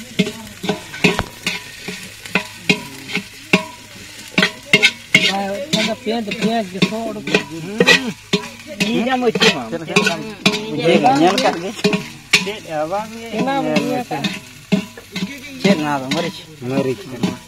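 A spoon stirring and scraping in an aluminium pot of frying onions, with frequent sharp clicks of the spoon against the pot.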